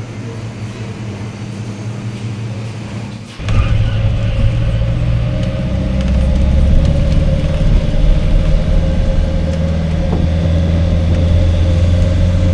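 A car running with a steady low hum, which turns abruptly louder and rumblier about three and a half seconds in.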